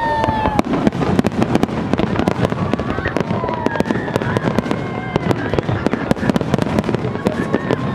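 Fireworks display: a dense, continuous run of bangs and crackles from aerial shells bursting, many reports a second over a low rumble, with a few faint whistling tones above it.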